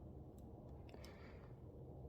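Near silence with a few faint clicks of a lock pick and tension tool working in a padlock's keyway.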